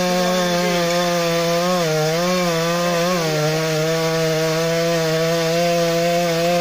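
STIHL two-stroke petrol chainsaw held at full throttle, cutting through the trunk of a small tree at its base. Its pitch dips briefly twice as the chain bites under load.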